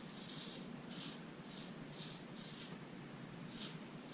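Razor strokes scraping through lathered stubble: about six short, crisp, scratchy strokes, quiet, at an uneven pace of one every half second or so.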